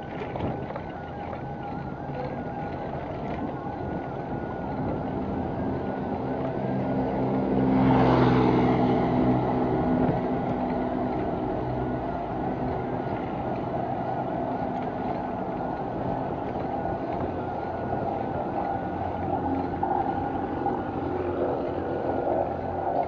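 Steady wind and road noise from a moving bicycle, with a motor engine passing close by: it swells to its loudest about eight seconds in and fades over the next few seconds.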